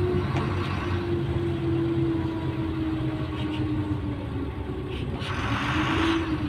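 Güleryüz Cobra GD-272 city bus running, its low engine rumble steady under a whine that sinks slowly in pitch over the first few seconds and climbs again near the end.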